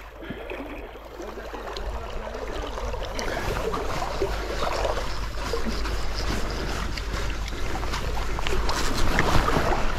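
Shallow stream water sloshing and rushing, growing steadily louder, with some wind on the microphone.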